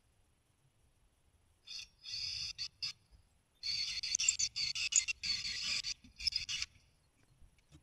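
Cordless drill boring fastening holes through a gudgeon strap into an iroko hardwood rudder blade. It runs in short trigger bursts: several brief pulses at first, then a longer run of about two and a half seconds, and a last short burst near the end.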